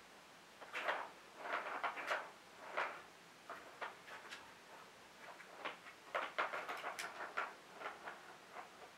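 A plastic ball rattling and rolling in the plastic track of a Catit Senses Circuit cat toy as a cat bats it with its paw. The clattering comes in irregular bursts, with a quieter stretch midway.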